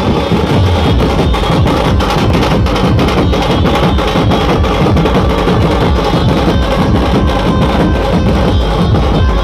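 Dhumal street band playing loud, fast, unbroken drumming, with a melody line over the drums.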